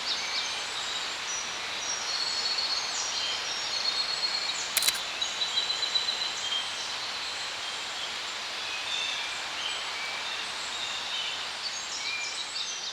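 Small birds chirping and singing, many short calls, over a steady hiss of outdoor background noise, with one sharp click about five seconds in.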